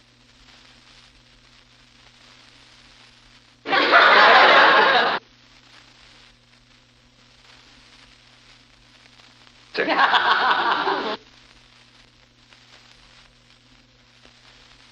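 Two short bursts of studio audience laughter from a vintage laugh track, each about a second and a half long, about six seconds apart. Between them the recording carries a steady low hum and hiss.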